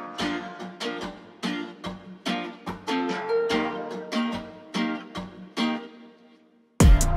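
Background music: a tune of plucked string notes in a regular pulse that fades out near the end. A louder track with drums and heavy bass cuts in just before the end.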